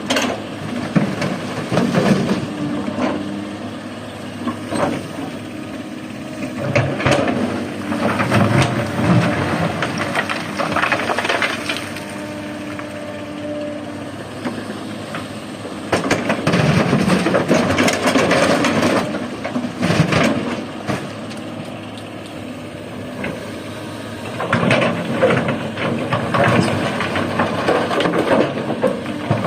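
Komatsu hydraulic excavator engine running, with rock and gravel rattling down into a dump truck bed in four long loads, each lasting several seconds.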